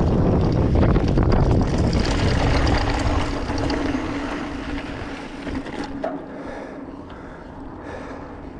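Wind rushing over the microphone and tyre noise from a mountain bike riding downhill, dying away over the second half as the bike slows. A steady hum runs underneath.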